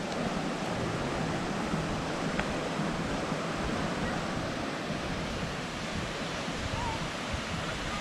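Steady rushing of a rocky forest stream running over small cascades and boulders, an even, unbroken water noise.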